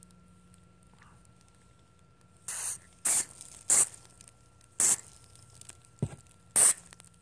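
Aerosol can of nonstick cooking spray hissing in five short bursts, the first a little longer than the rest. A low thump comes just before the last burst.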